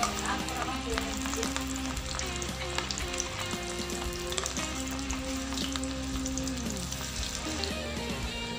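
Batter-coated prawns deep-frying in hot oil in a steel pan, sizzling with steady crackling.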